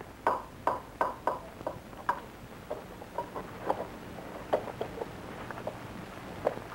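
Irregular light clicks and ticks, a few a second and thinning out after the first couple of seconds, over a faint steady low hum.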